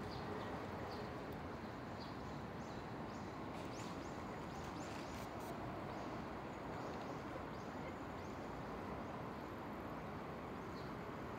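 Outdoor ambience: a steady low rush of background noise, with faint, short, high bird chirps scattered through it every second or so.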